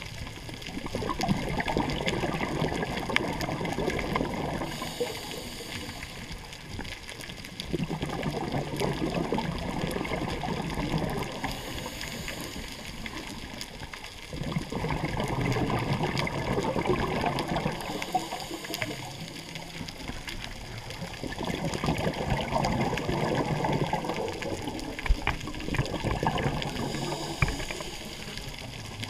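Scuba diver breathing through a regulator underwater. Four bursts of exhaled bubbles, each about three to four seconds long, alternate with quieter inhalations carrying a faint hiss.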